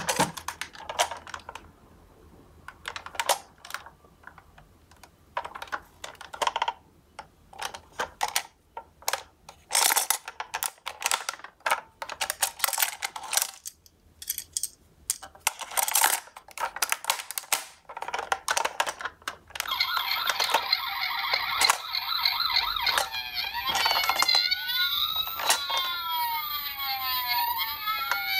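Plastic toy ambulance being handled in a cardboard box: irregular clicks and knocks of plastic on cardboard and its doors being worked. About two-thirds of the way through, the toy's battery-powered electronic siren and sound effects switch on, ending in wailing siren glides that rise and fall.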